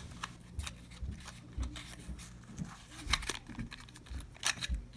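Irregular light clicks and rustles of handling as a micro USB cable is taken out of its box and handled, over a faint steady low hum.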